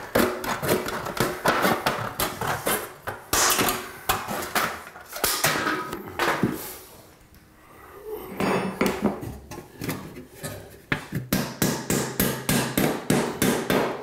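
Repeated knocks and metallic clatter of sheet-metal heating duct parts being handled and fitted into the floor opening, with a short lull about halfway through.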